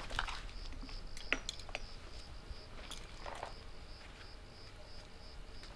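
Crickets chirping in an even pulsing rhythm, about three chirps a second, with a few short rustles and clicks of a fabric jacket being lifted and pulled on.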